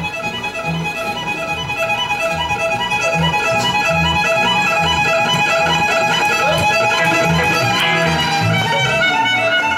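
Live country string band playing an upbeat train tune: fiddle leading over acoustic and electric guitar, with an upright bass keeping a steady beat.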